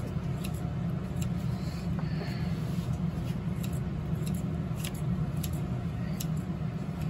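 Kitchen scissors snipping soft fish cake held in metal tongs: scattered light clicks and snips at irregular intervals, over a steady low rumble of background noise.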